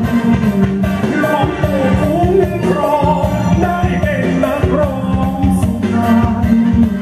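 Upbeat dance song with a singer over a steady beat, playing as music for a bas lop line dance.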